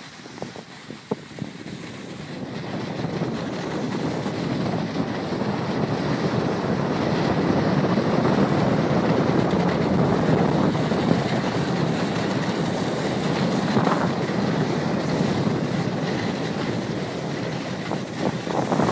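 Wind rushing over the microphone mixed with the hiss of sliding fast over packed snow on a downhill snowboard run. It builds over the first few seconds, then holds steady and loud.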